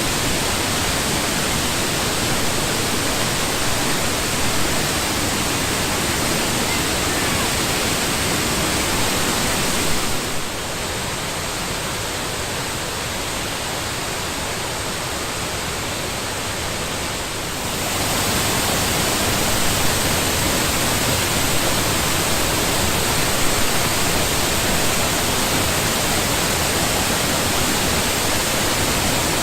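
Waterfall: a heavy, steady rush of falling water. For about eight seconds in the middle it turns quieter and duller, then comes back to full strength.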